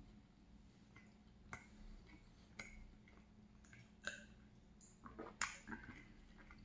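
Quiet close-up eating sounds: soft chewing of a donut with a few sharp mouth clicks, then swallows of milk. A glass is set down on the wooden table about five and a half seconds in, the loudest knock, with a short ring.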